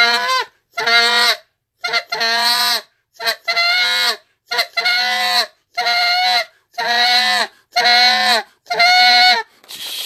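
Handheld Canada goose call blown in a string of about nine short, buzzy goose notes, roughly one a second. The buzz comes from a small air cavity and tongue pressure on the reed, the technique for the goose's aggressive train note.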